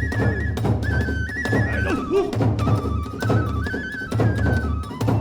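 Hiroshima kagura music: a bamboo transverse flute plays a stepping melody over a steady beat of the big ōdō drum, about two strokes a second, with sharp clashes of small hand cymbals.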